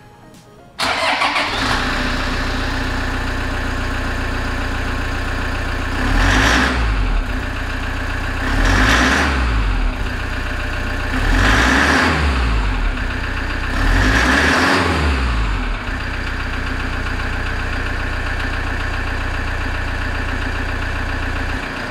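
Toyota HiAce's 1KD 3.0-litre four-cylinder diesel turbo engine starting, then idling with four short revs and falling back to idle each time, before being switched off near the end. It has a clattering diesel knock that sounds somewhat rough.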